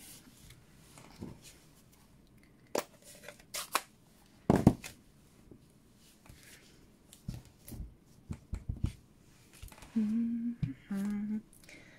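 Paper-crafting handling on a tabletop: paper sliding, and an ink pad lid snapping open with a few sharp clicks and knocks. Then a run of light taps as a clear acrylic stamp block is inked on the pad and pressed onto card. Near the end a woman's voice gives a brief wordless hum.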